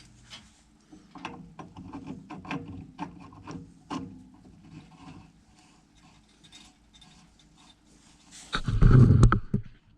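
Hand-work on the water heater's gas valve fittings: a run of short clicks and knocks with scraping, then a louder rough scrape lasting about a second near the end.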